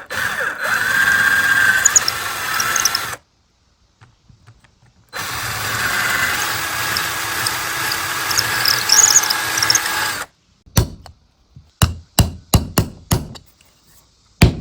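Power drill boring holes into the wood of a shoeshine box in two runs of a few seconds each, its whine wavering under load. A string of short, sharp knocks follows near the end.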